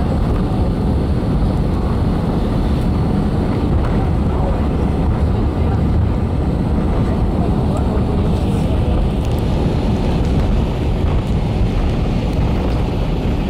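Cabin noise of an Airbus A320 rolling down the runway after touchdown: a steady, loud rumble of engines, airflow and wheels heard through the cabin window.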